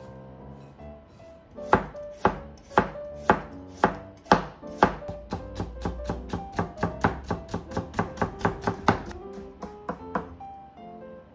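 Kitchen knife cutting a carrot on a cutting board, slicing it and then cutting the slices into thin strips. It starts with sharp single cuts about two a second, then speeds up to a quicker run of about four a second, and stops about ten seconds in.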